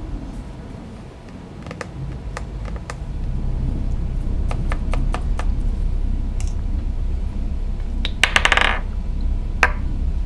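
Wooden chess pieces clicking down on a wooden board in a string of quick moves, with a short clatter a little after eight seconds as the king is knocked over, then one more click. A steady low hum runs underneath.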